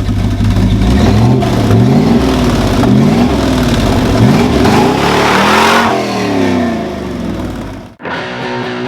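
Chevrolet 454 big-block V8 in a 1971 C10 pickup being revved several times, its pitch rising and falling with each blip. The sound cuts off abruptly near the end and electric guitar music follows.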